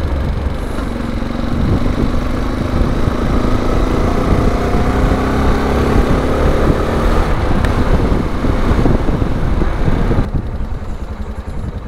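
Italika motorcycle engine running while riding, with wind noise rushing over the microphone. The engine note rises through the middle as it picks up speed, and the wind noise falls away near the end as the bike slows.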